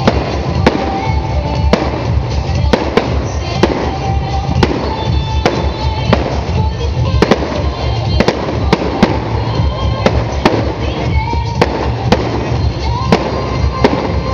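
Fireworks display: small aerial shells going off in sharp bangs, irregularly, a little more than one a second, over loud music with a steady thumping bass beat.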